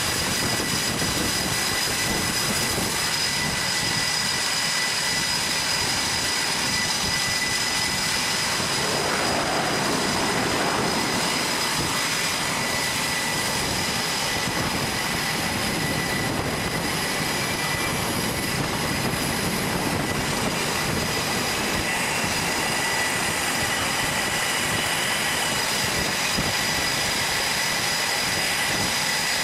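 F/A-18 Hornet-family fighter's jet engines running as the jet taxis: a steady high whine over a loud, continuous rush of exhaust noise, the rush getting fuller about nine seconds in.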